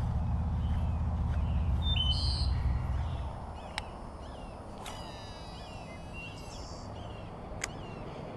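Birds calling over and over, short chirps with a trilled call in the middle. Wind rumbles on the microphone until about three seconds in, and there are a few sharp clicks after that.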